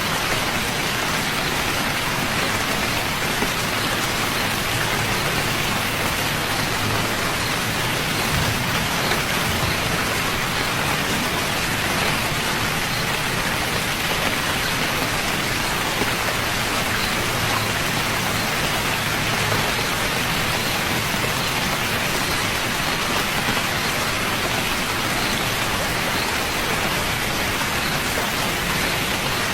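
Steady, even rainfall, a continuous hiss of drops on a surface.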